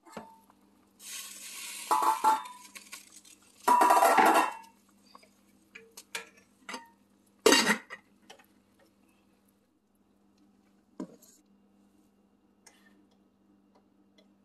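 Stainless steel cooking pot and metal utensils clanking, with a ringing metallic tone after the loudest knocks about two, four and seven and a half seconds in. A hiss runs alongside the first clanks, then only a few light knocks follow.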